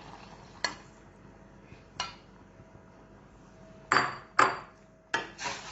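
A metal spoon knocking and clinking against a cooking pot, about six irregular strikes, as boiled carrots and milk are stirred; the loudest pair comes about four seconds in with a short metallic ring.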